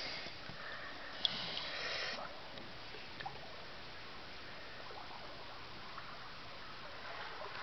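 Steady wash of sea water at the shore, a little louder for the first couple of seconds, with a faint click about a second in.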